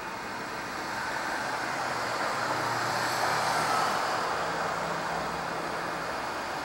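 Street traffic: a motor vehicle passes close by, its tyre and engine noise swelling to a peak about three to four seconds in and then easing off, over a faint low hum.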